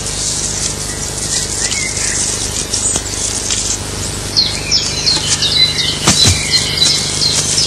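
Small birds chirping in short, high notes that come in about halfway, over a steady hiss and low hum, with one low falling swish about six seconds in.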